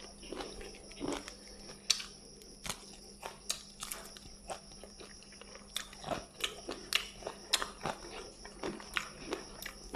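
Close-up eating sounds: a person chewing mouthfuls of rice and fish eaten by hand, with wet mouth clicks and lip smacks. The sharp clicks come irregularly, a couple a second, a little closer together in the second half.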